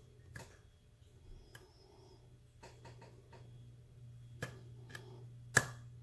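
Small metal clicks and ticks of a hook pick and tension wrench working the pin tumblers of a 38 mm Ace brass padlock, coming irregularly a few at a time, with the sharpest click near the end as a pin is pushed into place.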